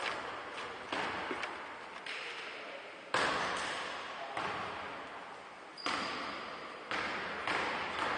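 A basketball bouncing on the floor of an indoor gym, about eight irregularly spaced bounces, each ringing out in the hall's long echo. It is a player bouncing the ball before taking free throws.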